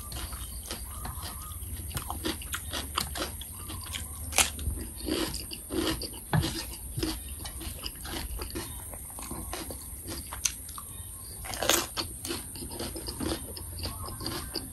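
Close-up chewing of crunchy raw cucumber dipped in mackerel chili paste: irregular wet crunches and mouth clicks, with a few sharper crunches standing out.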